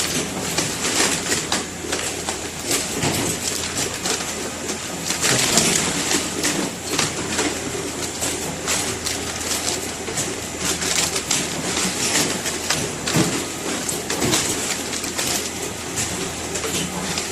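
Gim jaban (seasoned laver flake) weighing machine running: a steady hum under a dense patter of small clicks and rattles, with a steady high whine.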